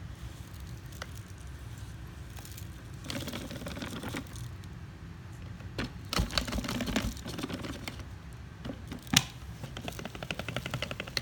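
Hard objects being handled: irregular clicks, rattles and a few sharp knocks, ending in a quick run of ticks. No motor is running.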